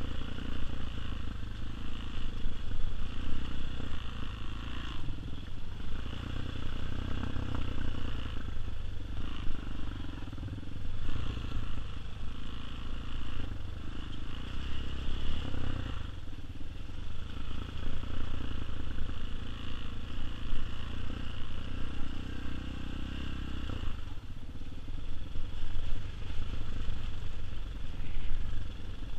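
Tao Tao TBR7 single-cylinder dual-sport motorcycle heard from the rider's seat on a dirt trail, the engine repeatedly revving up and easing off as the throttle is opened and closed every second or two.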